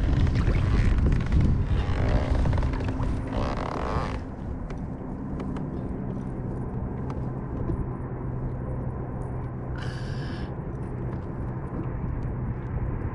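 Wind rumbling on the microphone, with rustling and handling noise for the first few seconds, then a quieter, steady low rumble. A short hissing burst comes about ten seconds in.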